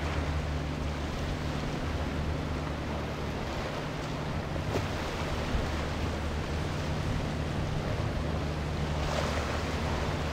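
Small center-console boat's outboard motor running with a steady low hum, over the wash of choppy water and wind on the microphone.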